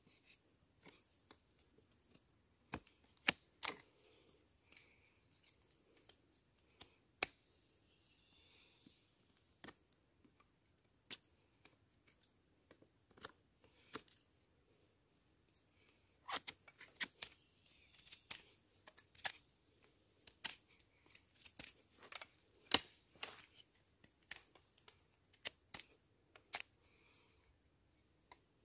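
Knife whittling wood for a spoon: irregular sharp cutting and scraping strokes, scattered at first and then in quicker runs in the second half.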